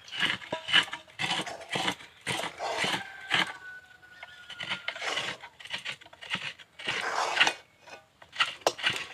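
A spatula scraping and stirring thick rice-flour dough around a kadai, in short irregular strokes with a few knocks against the pan.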